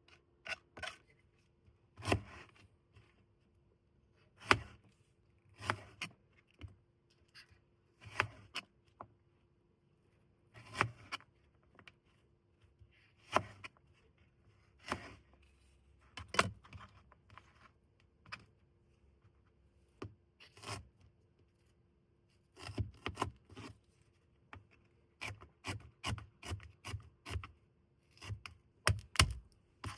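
Knife chopping food on a wooden cutting board: separate sharp knocks every second or two, quickening to a faster run of cuts near the end. A faint steady hum lies underneath.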